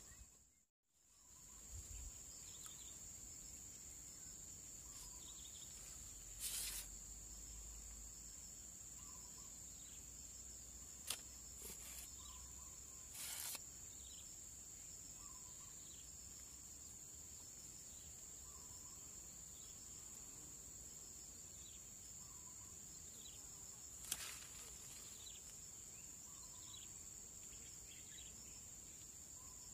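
Steady, high-pitched insect trill, like crickets, with faint short chirps repeating every couple of seconds and a few brief rustles.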